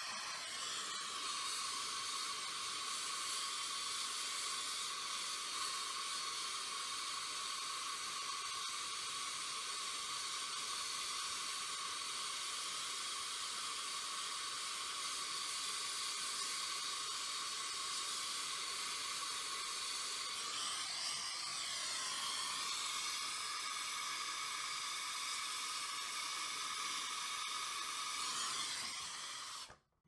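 Acetylene brazing torch flame hissing steadily while it heats the filter drier's copper joint for brazing. The hiss shifts a little about two-thirds of the way through and cuts off abruptly just before the end.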